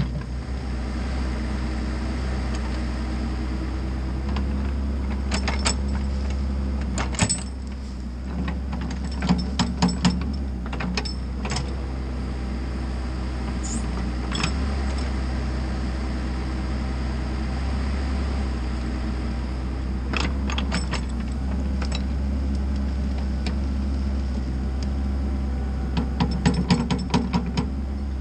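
Mini excavator's diesel engine running steadily under hydraulic load while backfilling soil. Scattered clanks and knocks from the bucket and stones come in clusters several times.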